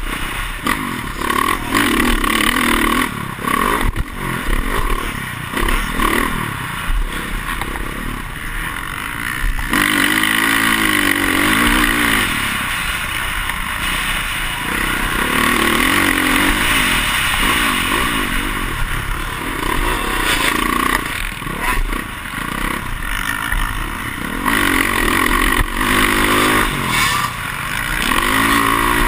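Motocross dirt bike engine heard close up from the onboard camera, revving up and backing off over and over as the rider accelerates and shifts around the track, with clatter and rushing noise from the ride.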